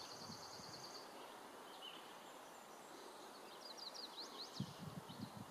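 Faint songbird calls: a high, even trill that stops about a second in, then a quick run of short rising chirps a little after the middle. A few soft low knocks come near the end.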